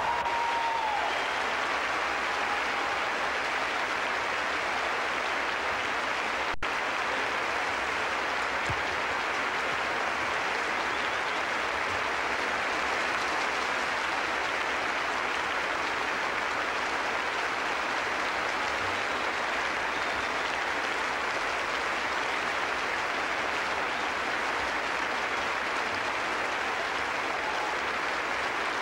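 Large concert-hall audience applauding, a steady, even ovation with no music under it.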